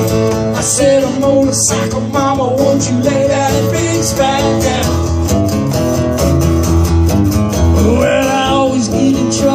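Live acoustic band playing an upbeat country-style song: strummed acoustic guitars and a fiddle, with singing.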